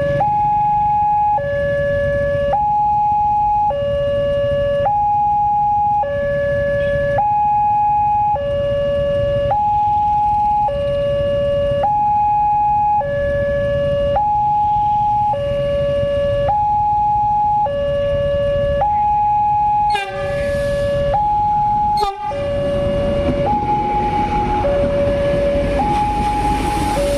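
Newly fitted level-crossing siren sounding a steady electronic two-tone hi-lo warning, switching between a higher and a lower tone about every 1.2 seconds. About two-thirds of the way in come two sharp knocks two seconds apart. After them a rising rush and rumble of an approaching train builds under the siren.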